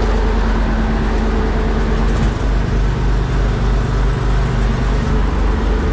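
Fishing boat's engine running steadily. About two seconds in its note changes and a low throb sets in, at about three beats a second.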